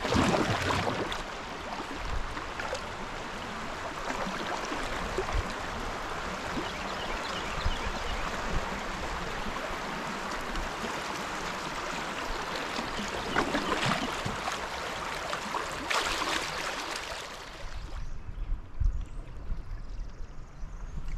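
River water rushing steadily, as through a riffle, with a few louder swells. The rushing cuts off abruptly about eighteen seconds in, leaving only low bumps.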